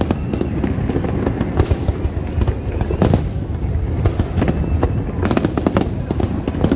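Fireworks display: a continuous rumble of aerial shells bursting, with many sharp bangs and crackles throughout and a dense cluster of reports about five seconds in.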